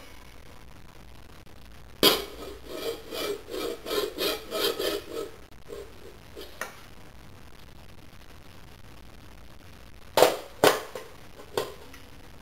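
Stainless steel pot lid rubbed and scraped over the metal rim of a pan in a quick run of strokes, then, a few seconds later, three sharp clanks of the lid knocking against the cookware.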